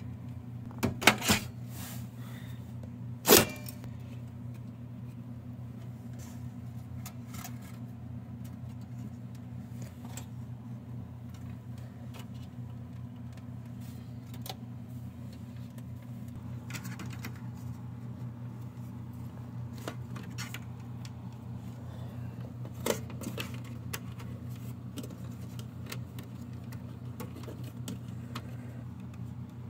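Clicks and knocks of plastic and sheet metal as parts of a desktop computer tower are handled while an optical drive in its caddy is fitted into the drive bay. A cluster of clicks comes about a second in, one loud sharp click at about three seconds, and scattered light taps follow, with another click near the end, over a steady low hum.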